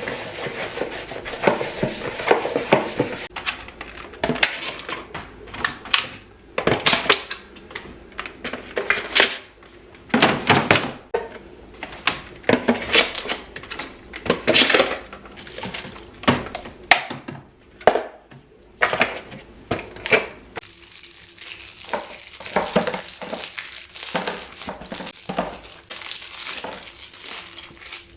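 Groceries and food containers knocking, clinking and rustling as they are handled and packed into a refrigerator, in irregular bursts. From about two-thirds of the way through, a steady high-pitched whine runs under the handling.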